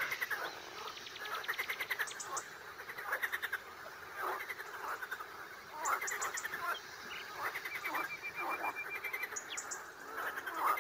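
A chorus of frogs croaking: rattling, pulsed calls repeating about once a second, with a few short, high chirps in between.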